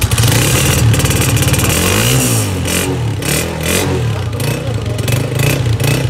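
Honda CG125's single-cylinder four-stroke engine revved hard, heard close to the exhaust silencer. The revs jump up suddenly at the start, then rise and fall in repeated throttle blips.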